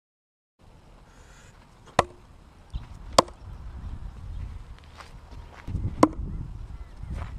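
Dawson Raider 5 fixed-blade knife thrown into a weathered wooden post, each hit a sharp wooden thunk with a short ring from the blade. There are three loud hits about two, three and six seconds in, and a fainter one near the end.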